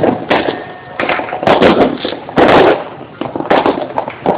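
Fireworks going off in a rapid, overlapping string of bangs and crackles with no gap between them, the loudest bursts coming about a second and a half in and again around two and a half seconds.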